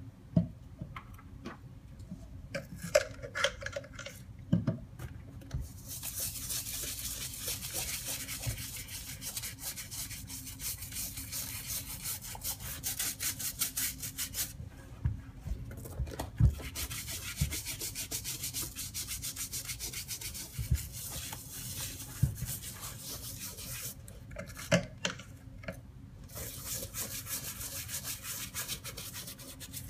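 Sneaker being scrubbed with a brush during cleaning: long runs of quick, rasping back-and-forth strokes. The scrubbing starts about six seconds in and breaks off twice for short pauses with a few light knocks.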